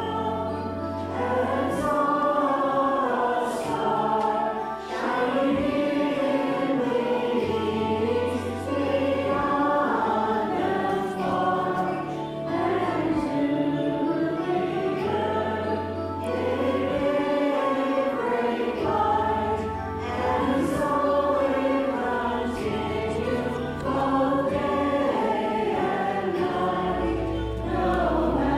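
A choir singing a Christmas carol, with sustained low accompaniment notes underneath that change every few seconds.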